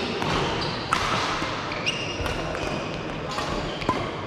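Rally in an indoor racket sport: several sharp racket hits at uneven spacing, with brief high shoe squeaks on the court floor between them, echoing in a sports hall.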